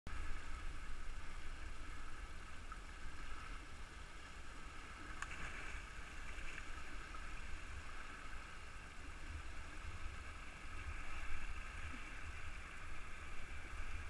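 River water rushing steadily over small rapids, with a low fluctuating rumble underneath. A short, sharp sound stands out about five seconds in.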